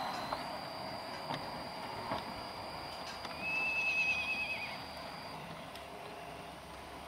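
LGB garden-railway train running along the track with a steady hiss and a few faint clicks, under a thin steady high whine that stops about five seconds in. About three and a half seconds in, a high squeal lasting about a second and a half, wavering as it ends, as the train enters a curve: typical of wheel flanges squealing on a tight curve.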